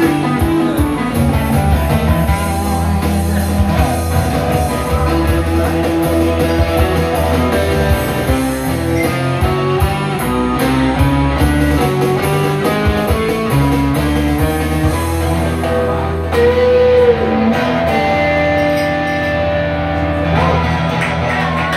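Amplified guitar playing a live instrumental passage over a steady bass line, with a note bent in pitch about three-quarters of the way through.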